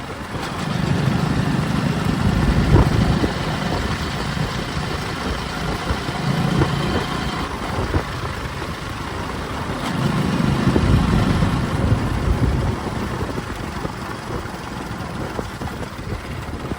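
JCB 3DX backhoe loader's diesel engine running, swelling louder three times as it comes under load while the machine digs and loads.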